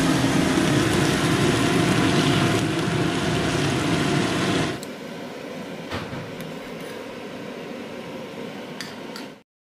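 A loud, steady machine-like hum with a rushing hiss, which drops sharply about halfway through to a quieter hiss with a few light clicks, then cuts off just before the end.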